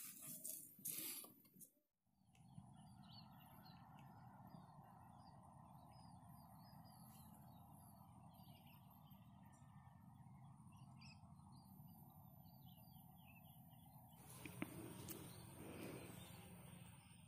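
Faint rural ambience: many small birds chirping briefly and repeatedly over a steady low hum and hiss. A louder noise opens the stretch, and a couple of sharp faint clicks come near the end.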